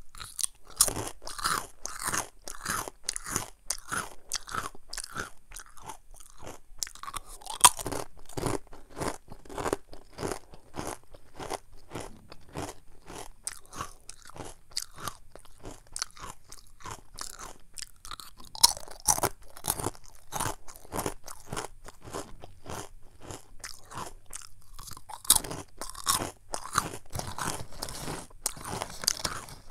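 Close-miked crunching and chewing of small, hard churro snack pieces, a steady run of crisp crunches with a few sharper, louder bites standing out.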